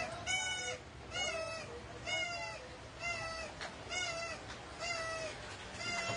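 Two-tone siren of a French fire engine, sounding one note about every second.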